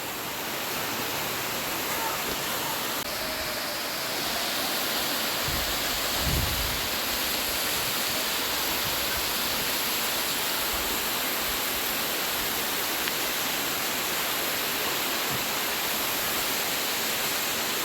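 Steady rushing of a waterfall, growing slightly louder about four seconds in, with a brief low rumble about six seconds in.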